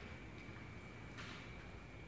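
Quiet auditorium room tone before the band plays: a low rumble with a faint steady high-pitched tone, and a brief soft rustle a little over a second in.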